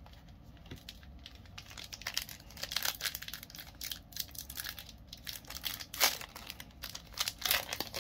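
Foil Pokémon booster pack wrapper crinkling and tearing as it is opened by hand, a run of irregular sharp crackles, the loudest about six seconds in.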